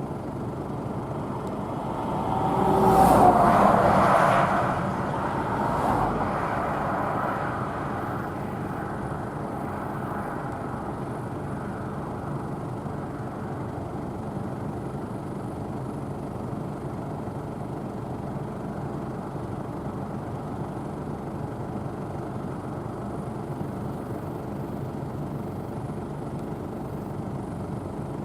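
Claas Tucano 570 combine harvester running steadily while harvesting barley, with a louder stretch about two to five seconds in before settling to an even drone.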